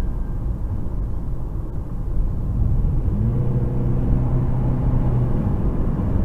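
Low rumble of a car driving, with road and engine noise heard from inside the car. A steady low engine hum comes in about three seconds in.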